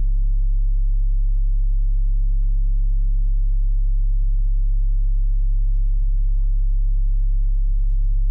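Loud, steady, low electrical hum with several overtones, unchanging in pitch and level, like mains hum in the audio track. Faint ticks and rattles show through it now and then.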